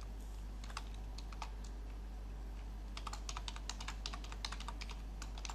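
Typing on a computer keyboard: a few scattered keystrokes, then a quick run of keys from about three seconds in, over a low steady hum.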